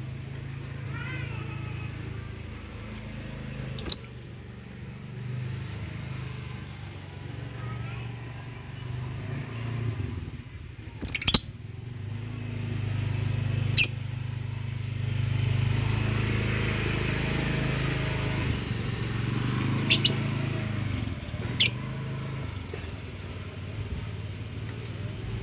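Lovebirds calling in an aviary: a handful of sharp, shrill calls stand out, over a short high chirp repeated every second or two. A steady low hum runs beneath.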